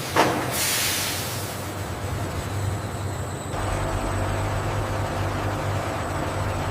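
Factory machinery running with a steady low hum. A short, sharp hiss right at the start fades away over about a second, and a deeper, louder hum sets in about three and a half seconds in.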